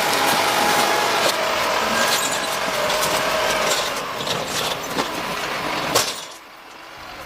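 Heavy forestry machinery running with a loud mechanical clatter and scattered knocks, which cuts off suddenly about six seconds in.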